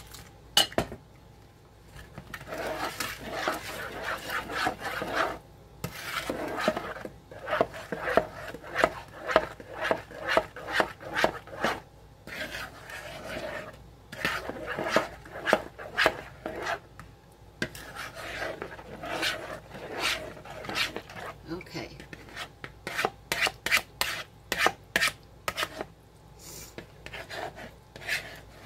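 Metal spoon stirring and scraping around a bowl, mixing instant mashed potato flakes with cold water into a stiff mash. The strokes are rough and uneven, and at times come quick and close together.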